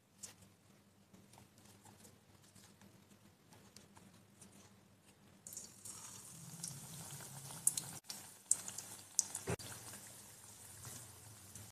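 Gram-flour-battered potato slices deep-frying in hot oil: faint crackling at first, then a sudden rise into a steady sizzle about five and a half seconds in as a slice goes into the oil, with sharp pops over the next few seconds. A low steady hum runs underneath.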